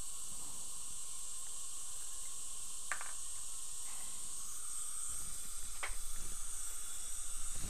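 Dental suction tip hissing steadily as it draws air from the mouth, with two brief sharper sounds about three and six seconds in and a low rumble near the end.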